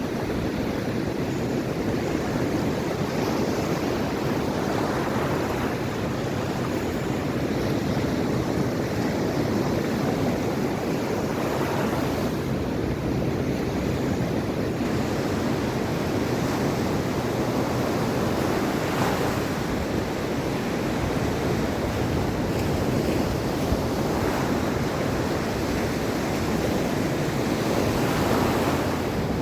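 Mediterranean Sea waves washing onto the shore in a steady surf, with gentle swells every few seconds and some wind noise on the microphone.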